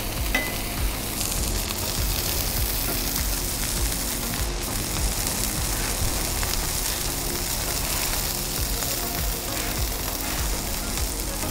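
Burger patties and buns frying with a steady sizzle on a hot Blackstone flat-top griddle, with soft music underneath.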